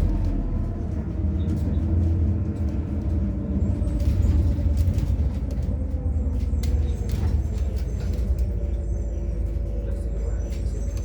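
Interior of a MAZ-103 city bus running on compressed natural gas, heard while driving: a steady engine note and low rumble, with rattling clicks throughout.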